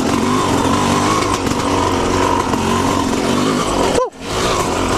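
Yamaha YZ250 single-cylinder two-stroke dirt bike engine running on the throttle along a woodland trail. Its pitch falls sharply about four seconds in, with a brief dip in loudness, before it picks up again.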